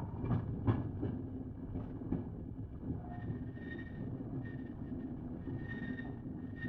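Passenger train running on the rails, heard from its last carriage: a steady low rumble with a few sharp knocks in the first two seconds and a faint high tone that comes and goes.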